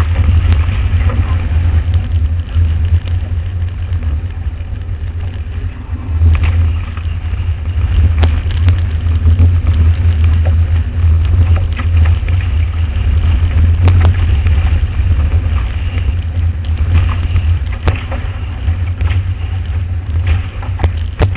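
Wind buffeting the microphone of an action camera fixed to the hull of a Dart 18 catamaran under way at speed, with water rushing past the hull: a steady low rumble under a hiss, broken by a few sharp knocks and slaps of spray.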